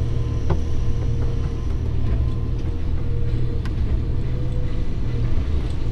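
Diesel engine of a DAF CF lorry running steadily with a low, even hum and no revving, with a few faint clicks.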